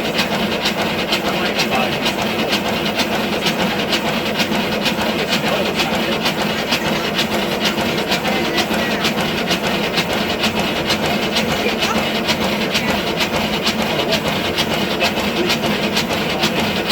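5-inch gauge live steam model of a BR Standard Class 9F locomotive running on a rolling road, its cylinders giving rapid, even exhaust beats.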